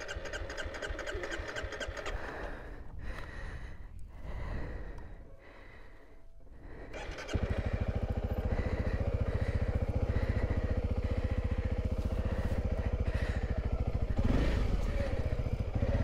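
Honda CRF300 Rally's single-cylinder engine running. About seven seconds in it turns suddenly louder and stays steady, with an even pulsing beat.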